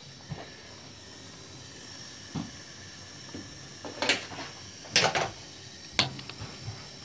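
A few sharp knocks and clacks of kitchen cupboards and crockery being handled, the loudest three coming about four, five and six seconds in.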